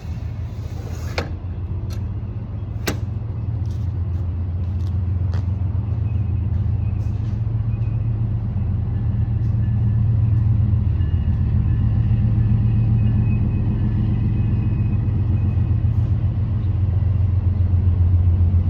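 Steady low mechanical rumble that grows louder partway through, with a few sharp clicks in the first few seconds.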